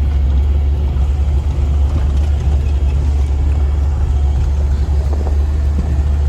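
Modified Suzuki Gypsy's engine running with a steady low drone while the vehicle is being driven.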